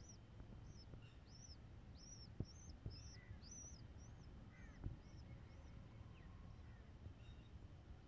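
Faint, thin high cheeps repeated about twice a second, dying away about six seconds in: an eight-day-old pigeon squab begging while its parent feeds it beak to beak. A few soft clicks stand out near the middle.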